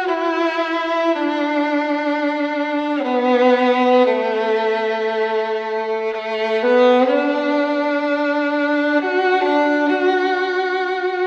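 Slow instrumental music: a single melody line of long held notes with vibrato, moving to a new pitch every second or two.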